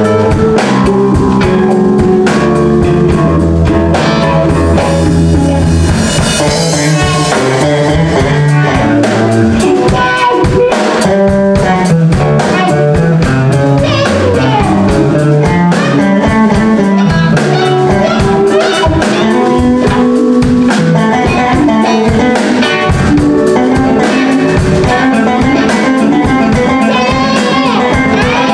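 A live blues band playing: an electric bass line stepping through low notes under guitar, with a drum kit keeping a steady beat.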